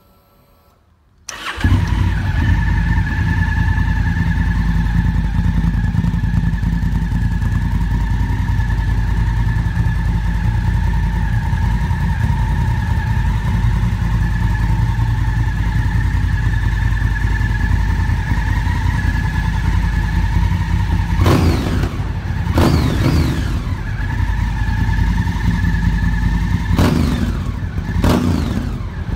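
Honda CRF1000L Africa Twin's 998 cc parallel-twin engine, breathing through a GPR aftermarket silencer, is started on the electric starter about a second in. It catches almost at once and settles into a steady idle. Near the end it is revved in a few short throttle blips.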